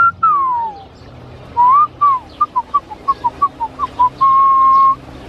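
A man whistling a bird-like call to pelicans. It opens with a rising then falling whistle, goes into a run of about ten short, quick notes, and ends on one long held note.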